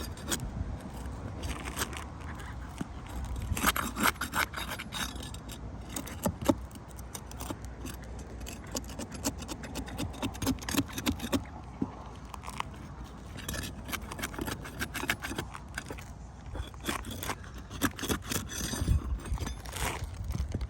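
Roofing nails being pried out of ridge cap shingles: a metal tool scraping and clicking irregularly against the shingles and nails.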